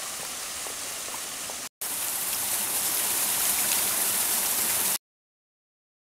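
Water of a small rock waterfall splashing and running over stones: a steady rush. A brief dropout comes about two seconds in, then the rush is louder until it cuts off abruptly near the end.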